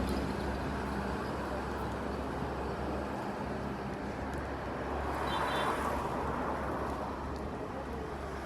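Steady outdoor rumble and hiss, like a vehicle or road traffic, swelling slightly about five seconds in, with a brief high tone around the same time.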